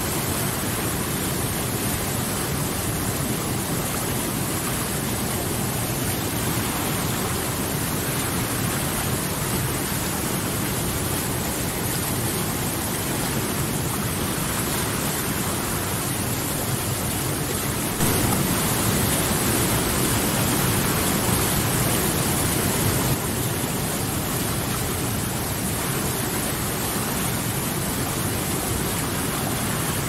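Whitewater river rapids rushing over boulders: a steady, dense roar of churning water. It gets a little louder for about five seconds just past the middle, then drops back.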